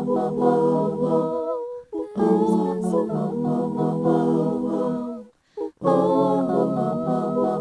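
Wordless a cappella singing: layered voices holding sustained notes in harmony, in phrases broken by short breaths about two and five and a half seconds in.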